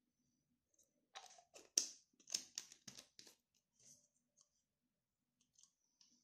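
A quick run of small, sharp clicks and knocks as a small glass cosmetic bottle is handled and set down among other bottles on a tabletop. The loudest comes about two seconds in, followed by a few fainter taps later.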